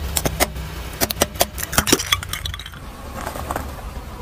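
Small coloured light bulbs with metal screw bases being crushed under a slowly rolling car tyre: a quick run of sharp cracks and clinks over the low rumble of the car, dying away after about two and a half seconds.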